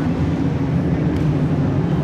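Engines of a field of dirt-track race trucks running at speed around the oval, a loud steady sound.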